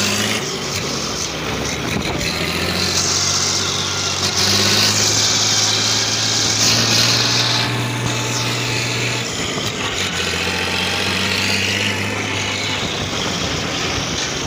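Valmet 128 tractor's diesel engine running steadily as the tractor moves slowly past, with a hiss over it that is loudest from about three to eight seconds in.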